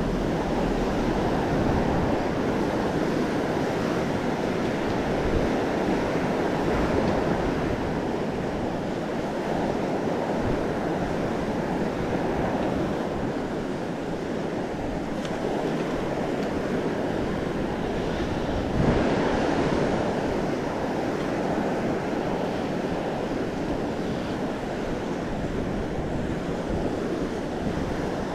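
Ocean surf breaking and washing ashore in a steady rush, swelling briefly about two-thirds of the way through, with some wind on the microphone.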